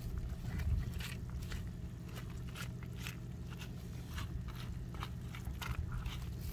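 Irregular small crackles and scrapes as a stick and fingers push through a pile of small wet fish and shrimp on a woven plastic sack, over a steady low hum.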